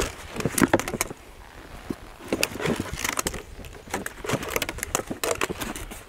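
Irregular clatter and knocks in a small boat as duck decoys and their cords are handled and set out on the water, coming in short clusters about every second or so.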